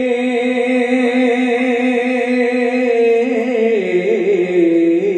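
Odia kirtan singing: one long held sung note, which drops in pitch and wavers about three and a half seconds in.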